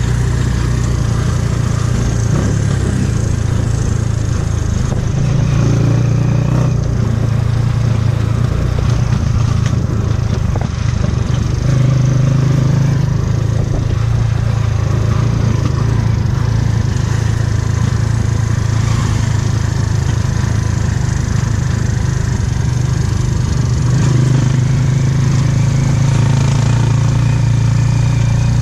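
Motorcycle engine of a tricycle (motorcycle with sidecar) running steadily as it rides along, heard from inside the sidecar. The engine note swells a few times as it speeds up.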